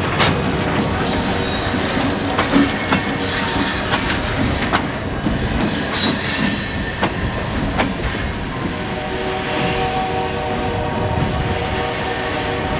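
A train rolling past: a run of sharp clicks and clanks from the wheels on the rails, with wheels squealing. About two-thirds of the way through, a steady humming tone comes in under the rolling noise.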